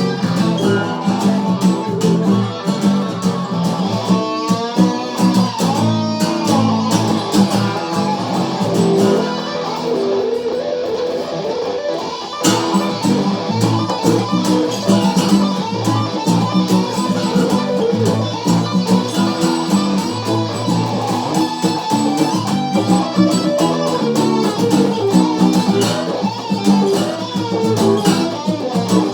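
Guitar jam: a guitar picks a continuous run of notes, with wavering, bent notes a few seconds in. The playing thins briefly midway, then picks up again with a fresh strike.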